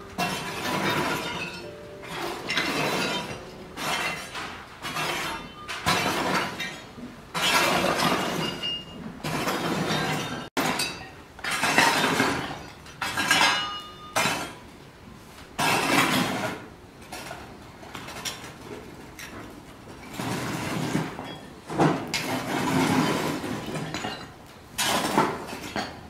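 Red-hot Kishu binchotan charcoal being raked out of the kiln: the hard pieces clink and rattle against each other and the rake with a glassy ring, in repeated strokes every one to two seconds.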